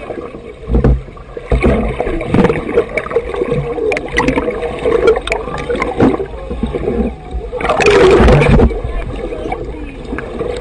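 Water churning and gurgling around a camera held underwater, with many small knocks and a loud rush of bubbles and water about eight seconds in.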